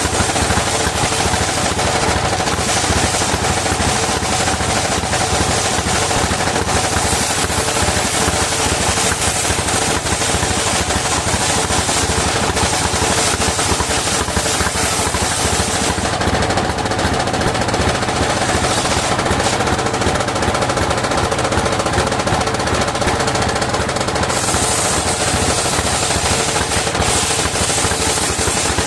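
Engine-driven sawmill circular saw running with a rapid, hard pulsing beat. The high hiss drops away from about 16 s to 24 s in, then returns.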